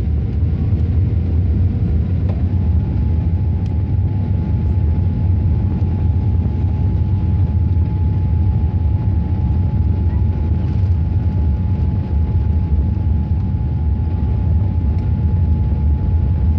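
Boeing 787 cabin noise over the wing: the Rolls-Royce Trent 1000 engines give a loud, steady low rumble with a thin whine that steps up in pitch about two seconds in and then holds.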